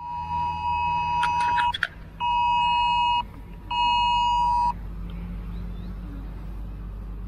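Smartphone emergency alert tone for an air-raid (missile alert) drill: a steady, high-pitched two-tone beep sounding once long and then twice shorter, with half-second gaps. It is followed by a low steady rumble.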